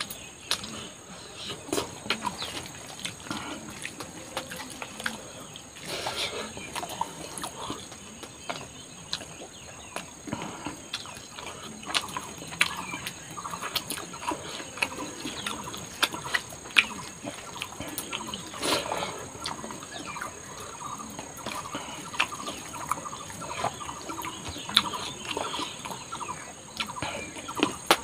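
Close-up mukbang eating sounds of rice and chicken curry eaten by hand: chewing, lip smacks and wet mouth clicks, coming irregularly.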